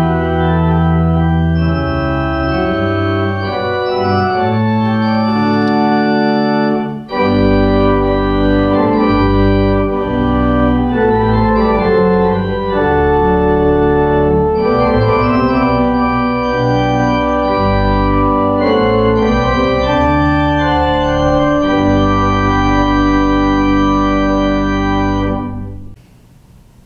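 Organ playing slow, sustained chords over a deep bass line, with a brief break about seven seconds in; the music stops near the end.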